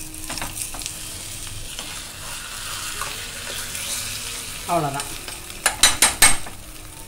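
Beaten egg frying in oil in a tempering ladle, a steady sizzle, as the omelette is loosened from the side of the ladle. A quick run of sharp clicks comes near the end.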